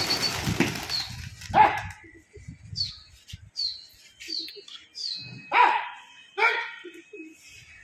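A flock of domestic pigeons taking off together, with a burst of wing-flapping in the first second and a half. Then come a run of short, high, falling chirps and two louder calls.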